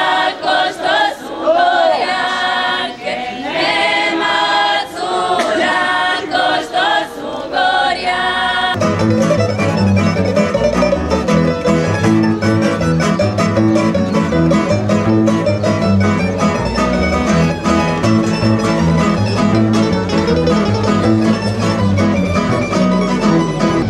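Unaccompanied singing with wavering, vibrato-laden notes for about the first third. Then a folk string band starts abruptly: guitar-shaped plucked instruments strummed in a steady quick rhythm over a plucked double bass.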